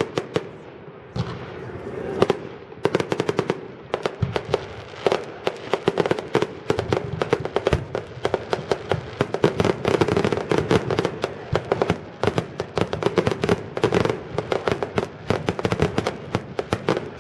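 Fireworks display: a rapid barrage of aerial shells bursting with many overlapping bangs and crackles, sparser for the first few seconds, then thickening into a near-continuous volley.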